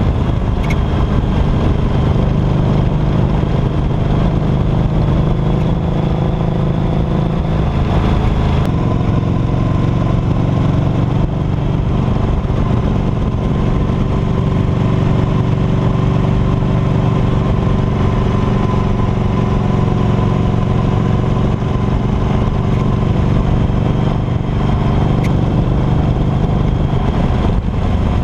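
2008 Harley-Davidson Night Rod Special's liquid-cooled Revolution V-twin running steadily at a road cruise, heard close up from beside the rear footpeg.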